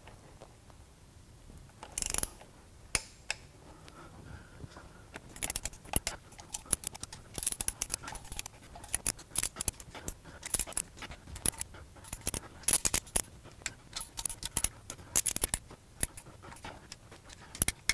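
Hand ratchet clicking in short runs, with light metal clinks, as the sump extension's bolts are tightened one after another in a crosswise pattern. A few isolated clicks at first, then frequent bursts of clicks from about five seconds in until near the end.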